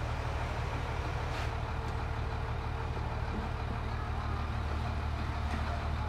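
An engine running steadily at constant speed, a low pulsing drone, with a faint knock about one and a half seconds in.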